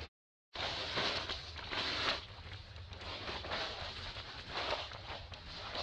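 Dry fallen leaves rustling and crackling with irregular footsteps and movement through the leaf litter. The sound cuts out for about half a second at the start, then comes back.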